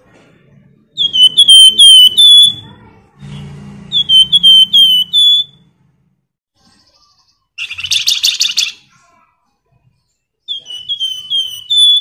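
Caged flamboyan songbird singing in short bursts: runs of about five clear, down-slurred whistled notes, repeated three times, with a fast buzzy trill in between. A low hum sounds briefly about three to five seconds in.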